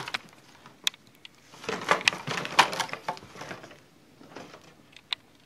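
Scattered knocks and clicks from a child moving about, with a denser cluster of them about two seconds in.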